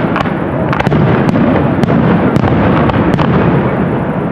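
Fireworks display going off: a dense, continuous run of explosions with many sharp cracks among them.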